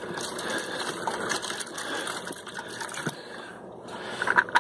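Pig eating from a feed pan, a rapid steady crunching and munching, with a sharper knock near the end.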